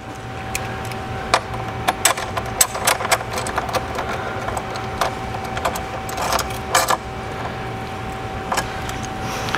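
Hand ratchet with a 10 mm socket clicking in short, irregular runs as it tightens a bolt, over a steady low hum.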